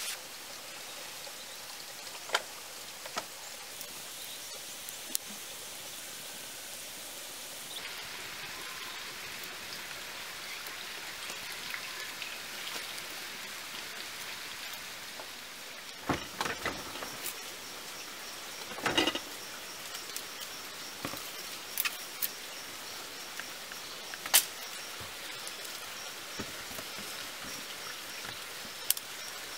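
Steady rain-like hiss of outdoor background noise, broken by scattered sharp clicks and knocks; from about halfway a high, pulsing chirp joins in.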